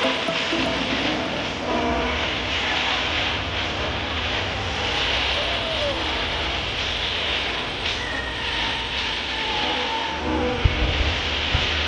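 Fireworks going off: a dense, steady crackling hiss with a few faint whistles, then sharp bangs near the end.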